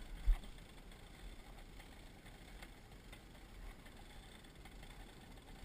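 Steady low wind and water noise aboard a sailboat under sail, with one knock about a third of a second in.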